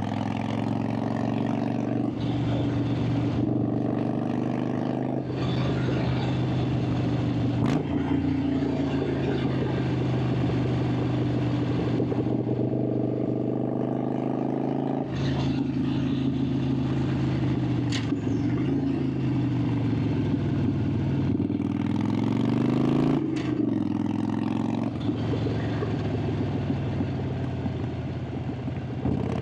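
Harley-Davidson Sportster 883's air-cooled V-twin engine and exhaust running under way. The revs climb and fall, with several gear changes where the pitch drops suddenly and then rises again.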